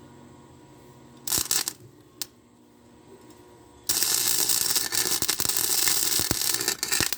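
Wire-feed (MIG) welding arc crackling on thin lawnmower-handlebar tubing: a brief tack burst, then a run of about three seconds that stops just before the end. The thin metal melts so easily that the weld burns a hole through it.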